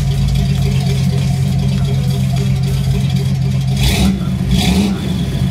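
Chevrolet pickup's engine idling steadily through the exhaust, with two brief hissy bursts of noise about four seconds in.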